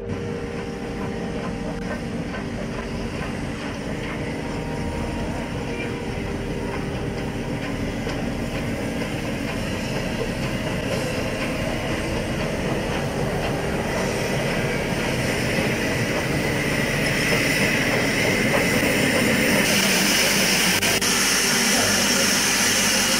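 Nilgiri Mountain Railway steam locomotive at a station: a steady mechanical noise and hiss with voices, growing gradually louder. Near the end a louder hiss comes in.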